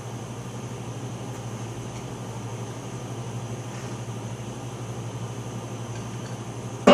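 Steady low hum with hiss and a faint high whine. At the very end it is cut into by a sharp, loud electronic drum hit through amplified speakers.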